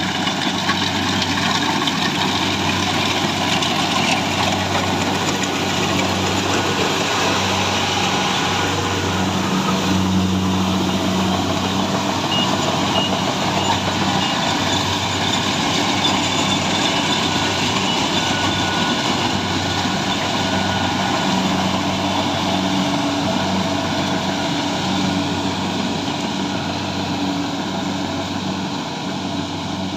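Rice combine harvester's engine running steadily, a constant machine hum with a broad mechanical noise over it.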